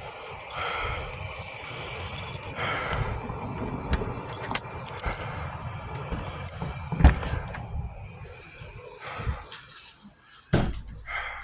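Keys jangling and rattling, with scattered clicks and one sharp knock about seven seconds in.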